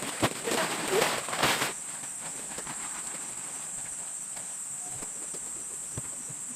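Insects keeping up a steady high-pitched drone, with rustling and a few sharp knocks in the first second and a half.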